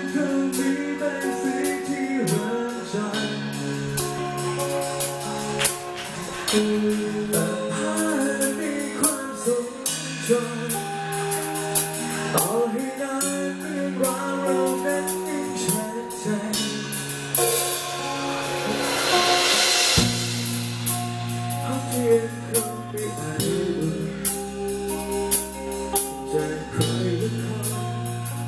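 Live rock band playing: a man singing into a handheld microphone over electric guitar, bass guitar and a drum kit. A wash of cymbals swells for a couple of seconds past the middle, then cuts off as the bass settles onto a new low note.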